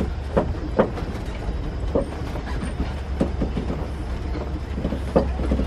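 Safari ride vehicle driving: a steady low engine and road rumble, with scattered short knocks and creaks from the vehicle as it rolls along.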